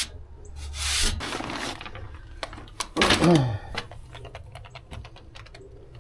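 A hand sweeping debris off a shelf makes a short rustle about a second in. After that comes a run of quick light taps as an emu pecks its beak along the shelf top. A brief low vocal sound falls in pitch about three seconds in.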